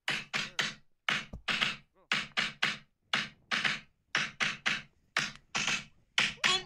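Opening of an edited-in music track: a sparse beat of short, sharp percussive hits in quick groups of two or three, with brief silences between.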